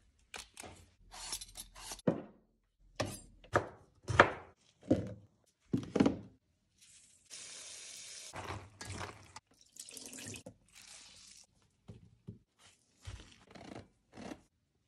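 Kitchen work at a sink: a run of short knocks and clatters, then water running for about a second, about seven seconds in, and again briefly a little later, with more knocks near the end.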